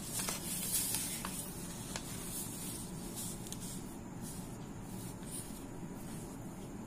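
Faint steady hiss with a few light clicks and soft rustles: handling noise as the camera is repositioned over the paper.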